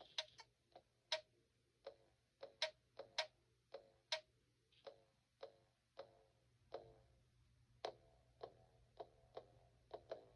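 Sparse, irregularly spaced sharp clicks, each with a brief ringing tail, at a low level.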